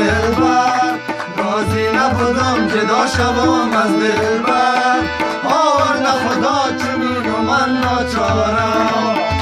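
Harmonium and tabla playing a Dari folk song, with a man singing the melody over them. The drum strokes repeat steadily throughout under the held harmonium notes.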